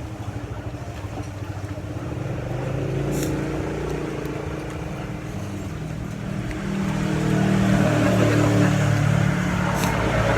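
A road vehicle's engine running close by, getting louder about two-thirds of the way in.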